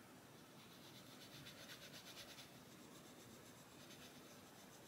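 Faint scratching of a Castle Arts coloured pencil shading on paper in quick, even strokes, fading somewhat after about three seconds.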